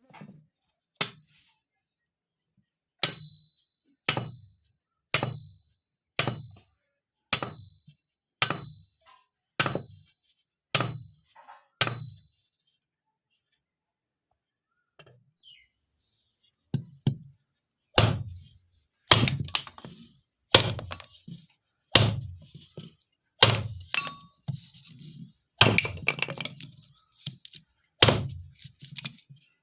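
Repeated hard strikes about a second apart. The first run of about nine blows rings with a high metallic tone. After a pause a second run comes as duller thuds with no ring.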